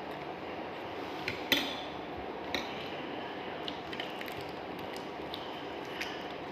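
Eating sounds: a few light clicks and clinks of a spoon or fork against a plate, the sharpest about a second and a half in, over steady background noise.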